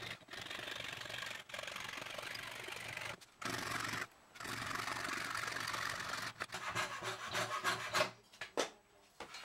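Hand fret saw cutting a curved outline in an oak blank: a steady rasping of quick saw strokes, broken by a few short pauses. Near the end the sawing breaks up into separate, uneven scrapes, then stops.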